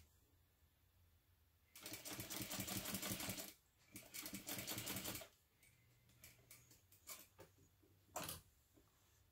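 Sewing machine top stitching the edge of a fabric panel in two short runs of fast, even stitching, stopping briefly between them. After that come scattered light clicks and taps as the machine and work are handled, with one sharper click near the end.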